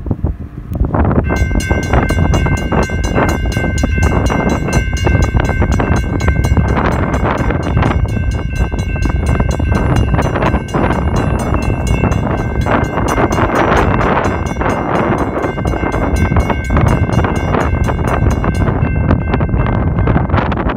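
WRRS mechanical railroad crossing bell ringing with rapid, even strikes as the crossing activates to warn of an approaching train. It starts about a second in and stops a couple of seconds before the end.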